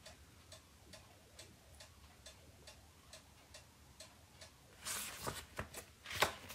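Faint, regular ticking at about two ticks a second. A louder rustle comes in about five seconds in.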